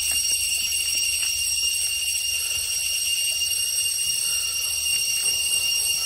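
Shrill chorus of crickets: a steady, high ringing at several pitches at once, unbroken throughout.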